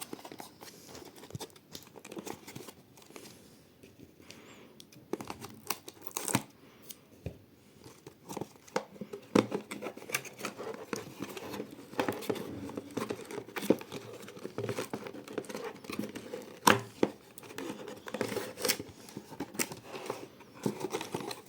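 Doorbell's retail packaging being opened and handled: tearing and crinkling of packaging, with many scattered clicks and knocks.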